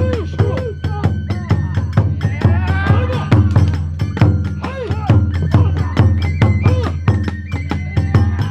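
Kagura hayashi accompaniment: taiko drum and hand cymbals beating a fast, steady rhythm, with a bamboo flute playing held high notes over it.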